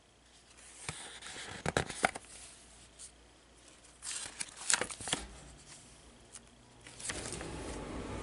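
Thick, collage-covered art journal pages being turned and handled, with two bursts of paper rustling and crinkling, about a second in and again about four seconds in.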